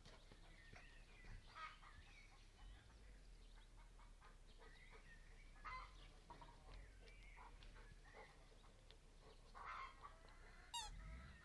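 Chickens clucking faintly in short, scattered calls, with one brief, quicker call near the end.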